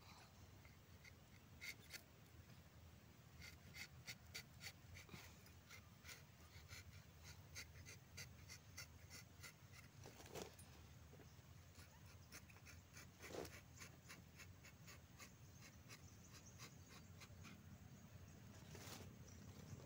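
A rubber-tapping knife shaving a thin strip of bark along the tapping groove of a rubber tree: faint, rapid scratchy clicks, several a second, with a couple of louder scrapes about ten and thirteen seconds in.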